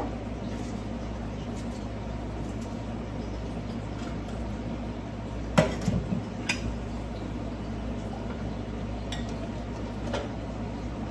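Kitchen clatter as a cook handles containers and utensils on the counter: one sharp knock about halfway through, a lighter clink about a second later and another near the end, over a steady low hum.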